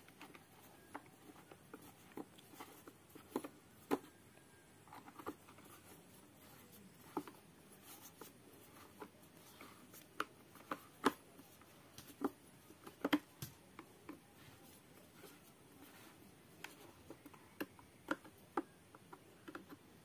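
Faint, irregular clicks and taps of a metal T-handle socket wrench turning a fastener by the carburetor of a Stihl MS 382 chainsaw, metal knocking on metal and plastic.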